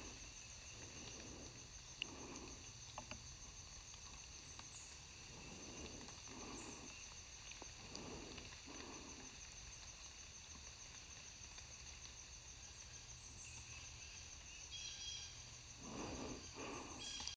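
Quiet woodland ambience: a steady, high, finely pulsing insect drone, with short bird chirps now and then and a few soft low puffs close by.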